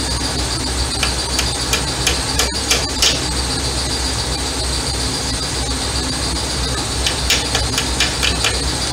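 Needle-nose pliers working on the front suspension behind a brake rotor, making short metal clicks and taps in two bursts, over a steady high-pitched whine and a low hum in the background.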